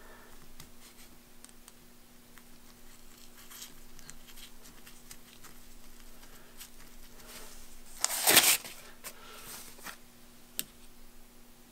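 Faint scratching and small clicks of fingers turning a long set screw into a super spacer's cast-iron body, over a steady low hum. About eight seconds in, a louder half-second rustle as a nitrile glove is pulled off.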